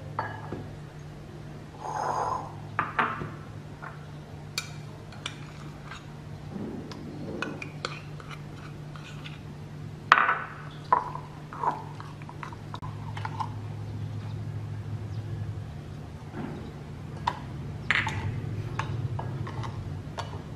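Metal spoon clinking and scraping against ceramic bowls as sauce ingredients are stirred and mashed together, with scattered sharp clicks and a few short ringing clinks, several close together about halfway through. A steady low hum runs underneath.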